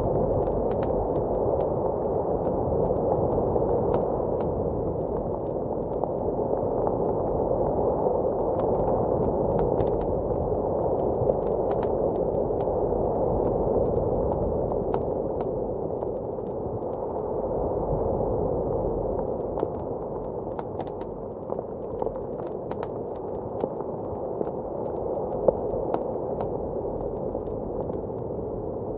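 Blizzard wind heard muffled from indoors, a steady low rushing that swells and eases slowly, with the sparse crackles and pops of a wood fire in a fireplace scattered through it.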